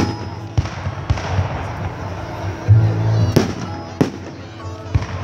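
Fireworks shells bursting in the sky: about six sharp bangs spread across a few seconds. Christmas music plays steadily underneath.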